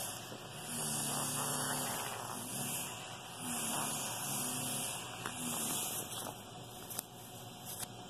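Senegal parrot making a series of raspy, buzzing "rrrrrr" bursts, each about a second long, its imitation of a demolition hammer breaking up a floor.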